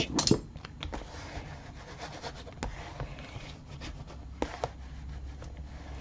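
A hand rubbing and pressing cardstock flat to burnish it onto an album page: soft paper rustling with a few light clicks and taps.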